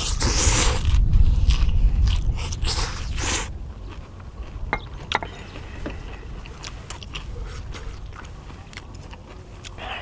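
Noodles slurped loudly from a bowl, twice in the first few seconds, over a low rumble. Then quieter chewing with small scattered clicks.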